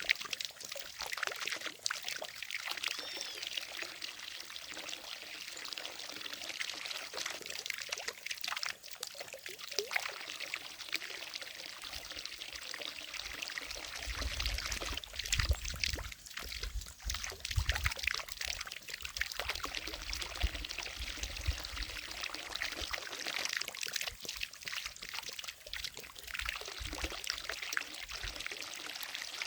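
Water from a fountain falling and splashing steadily into a lake, with a trickling quality. A low rumble comes in for a few seconds past the middle.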